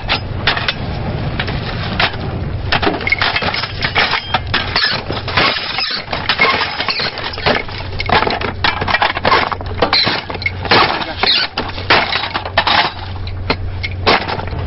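Dense, irregular clattering and knocking of a metal ammunition belt being handled and fed into a mounted gun, over a low steady hum.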